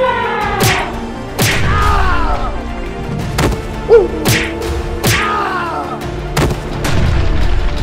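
Cartoon fight sound effects: a quick series of sharp hits and thuds mixed with several pitched cries that fall in pitch, over background music.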